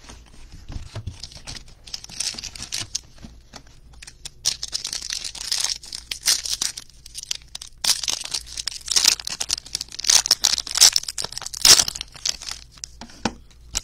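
Trading card pack wrapping torn open and crinkled by hand: a run of crackling, tearing rustles with sharp clicks, loudest in the second half.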